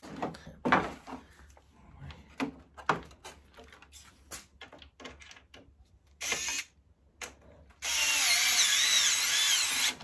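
Cordless drill-driver driving screws into a mini-split indoor unit's housing: a short run about six seconds in, then a longer run of about two seconds at the end with a wavering motor whine. Before that, scattered clicks and knocks of the tool and screw being handled.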